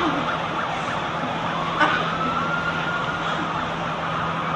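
Several emergency-vehicle sirens wailing at once, their pitches rising and falling across each other over a dense wash of city noise and a steady low hum. A single sharp knock about two seconds in.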